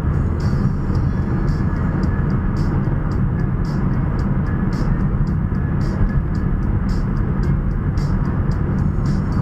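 Steady low rumble of a car's engine and tyres on the road, heard from inside the cabin while driving at a constant speed.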